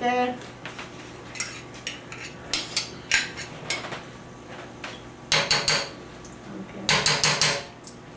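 Sauerkraut being scraped out of a glass jar into a metal strainer in the sink: scattered clinks and knocks of a utensil against glass and metal, with two louder bursts of clatter about five and seven seconds in.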